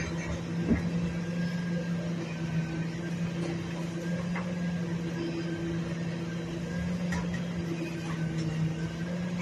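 Refuse truck running with a steady, even hum, broken by a few light knocks and clicks.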